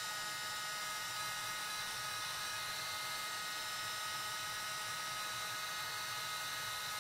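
Heat embossing tool running steadily, its small fan motor giving a constant-pitched whir with airy hiss, as it melts embossing powder on a stamped image.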